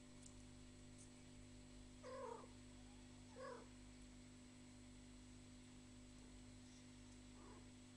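Blue Persian cat mewing faintly: two short mews about two and three and a half seconds in, and a fainter one near the end.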